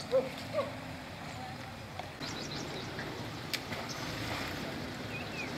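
Canal water splashing and rushing steadily around a wading Asian elephant as it pushes under a concrete culvert. Brief voices near the start, and a single sharp click about three and a half seconds in.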